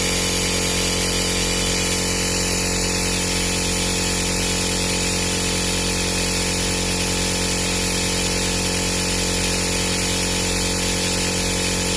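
Steady hum and hiss of a small motor running.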